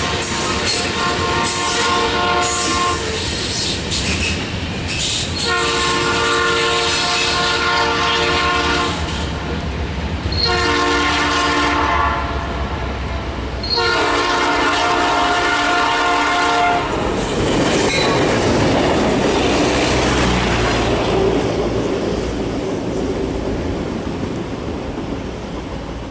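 Locomotive horn sounding a multi-note chord in four blasts, the third the shortest: the long-long-short-long grade-crossing signal. After the last blast comes the steady rumble of the train running past, fading near the end.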